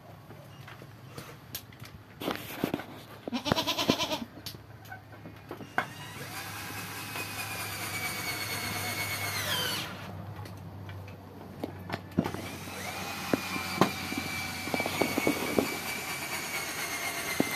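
Cordless drill driving screws into the wooden boards of a pen door. A short burst of the motor, then two longer runs of several seconds each, a steady whine that drops in pitch as the motor stops.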